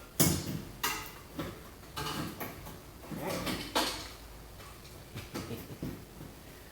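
Irregular metallic clicks and knocks of pliers working against a brake caliper while its piston is pushed back, a handful of separate strikes with quiet between them.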